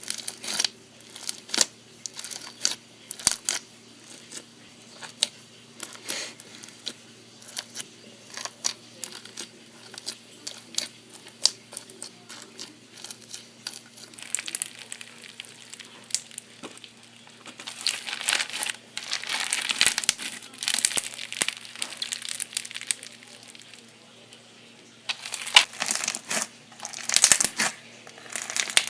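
Floam slime, slime packed with tiny foam beads, being squeezed and worked by hand, giving sharp crackles and pops. Single clicks come first, then denser crackling in stretches about halfway through and again near the end.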